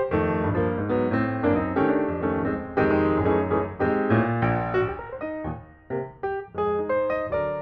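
Background piano music: a continuous melody of struck notes and chords.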